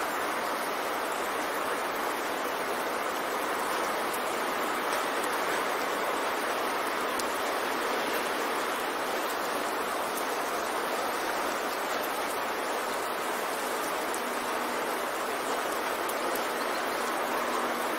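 Steady, unbroken hiss of noise, even in level throughout, with little bass: a masking track of the kind subliminal audio uses to cover faint affirmations.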